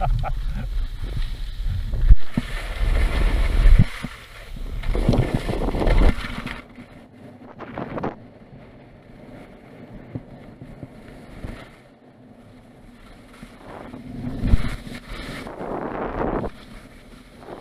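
Wind buffeting the microphone of a skier's camera on the way downhill, with skis scraping and hissing over groomed snow. It is loud with swells at the start, quieter through the middle, and swells again near the end.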